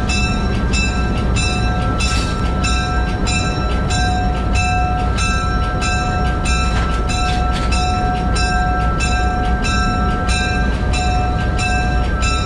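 Diesel locomotive cab ride: the engine runs with a steady low rumble under a bell ringing at an even pace, about two to three strikes a second, each strike leaving lingering ringing tones.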